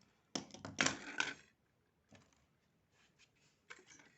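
Cutting pliers working on a fibre-optic drop cable: a quick burst of clicks and scraping in the first second and a half, then a few faint clicks near the end.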